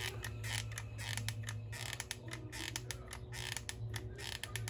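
Hot glue gun being squeezed, with irregular clicks and short creaks from its trigger and feed mechanism as glue is pushed out.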